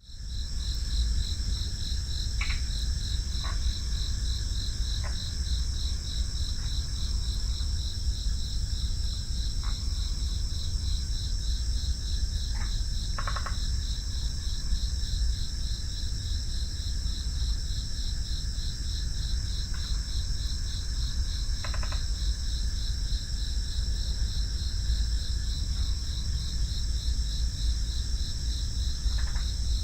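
A chorus of crickets chirping: a steady, rapidly pulsing high trill over a continuous higher buzz, with a few short, lower chirps scattered through it. A steady low rumble runs underneath.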